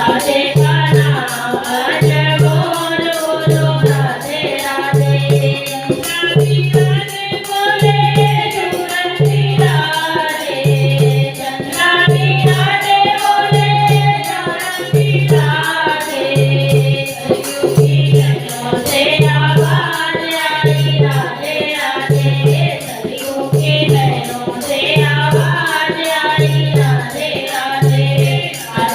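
Hindi devotional song (bhajan) with sung vocals over a steady low drum beat, about one beat a second, and rattling shaker-like percussion.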